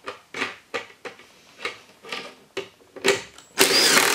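A run of short sharp plastic knocks and clicks, about three a second, as a plastic bucket is handled. About three and a half seconds in, a cordless drill starts up loud and bores into the bucket's plastic wall.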